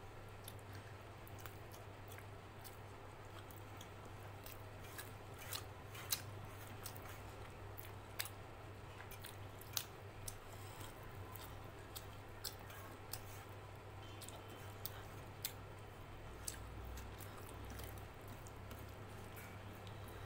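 Fingers squishing and mixing rice and curry on a stainless-steel plate, with about a dozen scattered sharp clicks and a low steady hum underneath.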